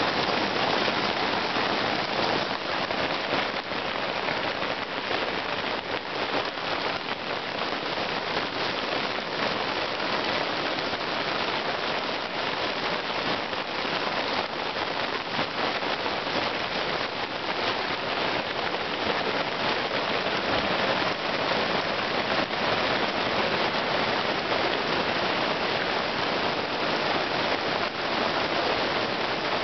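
Small hailstones falling heavily on grass and outdoor rugs: a dense, steady patter of countless tiny impacts.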